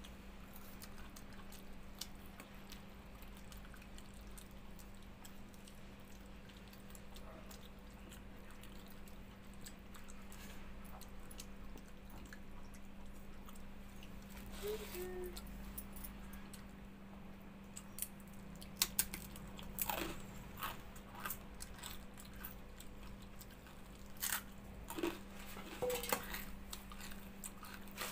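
Close-up mouth sounds of eating watered rice (pakhala bhat) and vegetable fry by hand: chewing, with sharp smacks and clicks that grow frequent in the second half, over a steady low hum.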